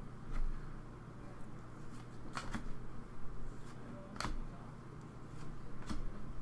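Hockey trading cards being handled and slid through a stack, with a few sharp snapping flicks spread through the moment, over a low steady hum.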